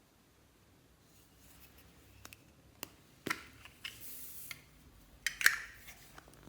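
Slime-making handling sounds: a scattered run of sharp clicks and snips, with a short hiss near the middle and the loudest snaps about two-thirds of the way through.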